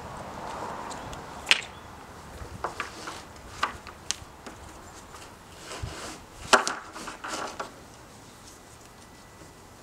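Tie-down straps being threaded through their buckles and pulled tight against a paddle board on a roof rack: scattered sharp clicks and knocks with rustling of strap webbing, the loudest click about six and a half seconds in.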